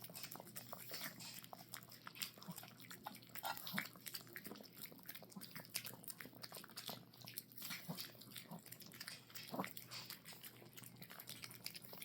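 Chihuahuas eating a soft dinner: faint, irregular chewing and lip-smacking clicks.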